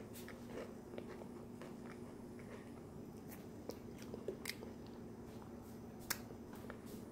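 A person chewing a mouthful of nacho pasta close to the microphone: faint, scattered soft mouth clicks, one sharper about six seconds in, over a faint steady hum.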